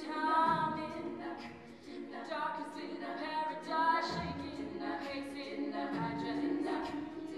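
All-female a cappella group singing: a lead voice over sustained backing harmonies from the rest of the group.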